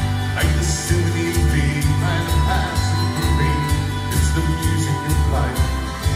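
Live country-pop band: strummed acoustic guitar and electric guitar over a steady pulsing bass beat, with a man singing in places.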